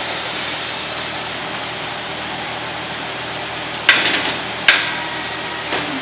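Steady rushing of a large evaporative cooler fan. About four seconds in come two sharp metallic clanks with a short ring, under a second apart, then a lighter knock near the end: metal tools and parts of a tire changing machine at work on a motorcycle wheel.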